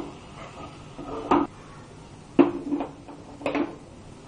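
Wooden spoon stirring chicken pieces in a metal pot, knocking against the pot four times, each knock leaving a brief metallic ring.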